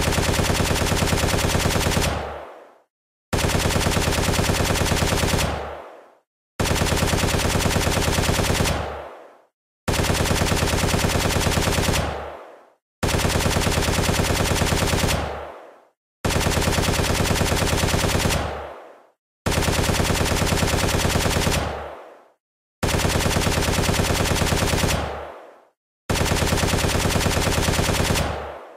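FN SCAR-H battle rifle sound effect firing on full auto: nine identical bursts of rapid fire, each about two seconds long and dying away quickly, repeating every three seconds or so.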